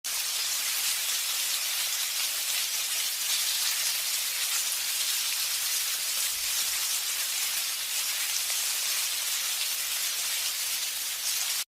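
A steady, even hiss like falling rain, with no animal calls, starting and stopping abruptly.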